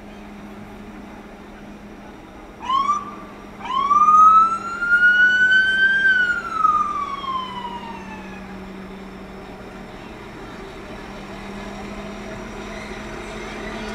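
A siren sounds once: a short chirp, then a wail that rises for about two seconds and slides back down more slowly as it dies away, over a low steady hum.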